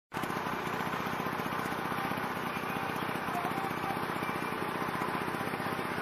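Motorcycle engine running steadily while riding along.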